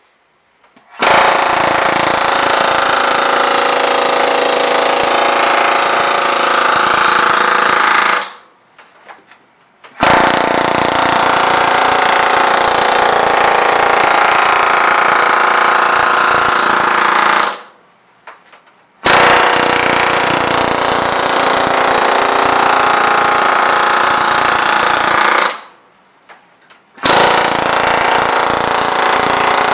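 Pneumatic air hammer rapidly hammering over the edge flange of a thin aluminium wing rib against a form block. It runs in four long bursts of about seven seconds each, with short pauses between them.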